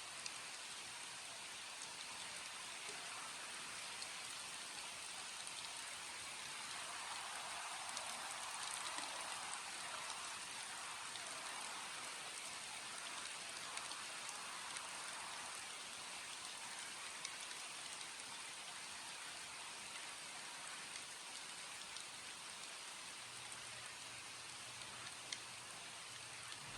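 Steady rain falling, an even hiss with scattered faint drop ticks; a faint low hum joins near the end.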